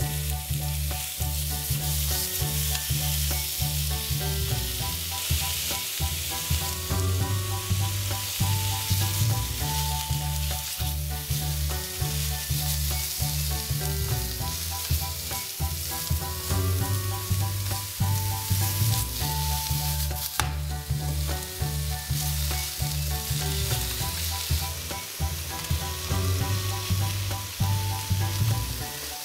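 Sliced pork sizzling steadily in a hot non-stick frying pan as chopsticks stir and turn the pieces, with a single sharp tap about twenty seconds in.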